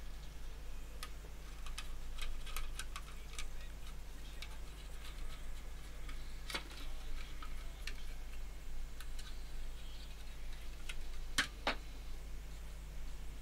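Small precision screwdriver driving machine screws back into a femtocell's plastic housing: irregular light clicks and ticks of tool, screws and casing, with two louder clicks near the end.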